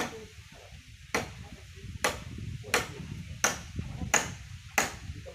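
Hammer blows on construction work, seven sharp strikes at a steady pace, each with a bright metallic ring.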